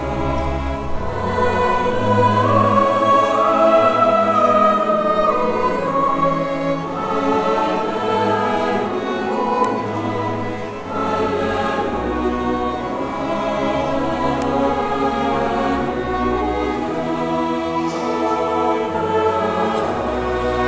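Mixed choir singing with a small orchestra of violins, cello and woodwinds, in sustained, held notes.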